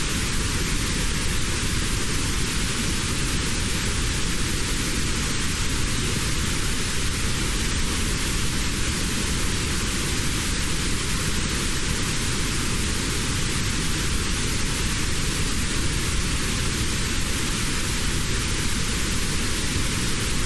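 Steady synthetic white noise with a narrow band around 700 Hz cut out. This is notched noise of the kind played for tinnitus relief.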